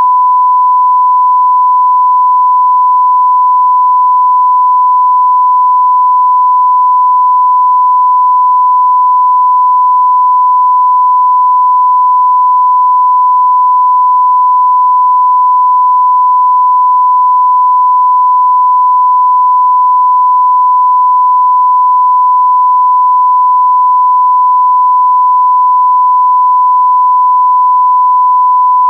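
Censor bleep sound effect: a single pure tone of about a thousand hertz, held steady and unbroken at one pitch and level.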